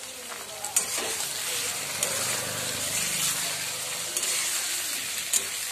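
Chicken pieces and onions sizzling in hot oil in a steel kadai, stirred with a metal spatula that clicks and scrapes against the pan a few times.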